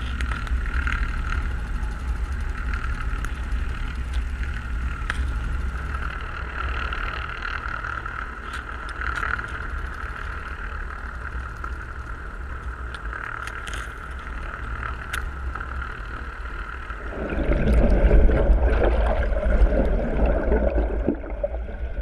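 Underwater noise picked up by a camera on a bottom trawl net under tow: a steady low rumble with a constant higher hum and a few sharp clicks. About three quarters of the way in, a louder rushing swell of water noise rises for a few seconds, then eases.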